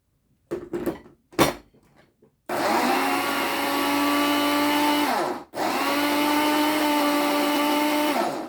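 Countertop blender motor running in two bursts of a little under three seconds each, with a steady whine that winds down in the short pause between them, blending a soft mix of boiled rice and avocado. A few knocks come before the first run.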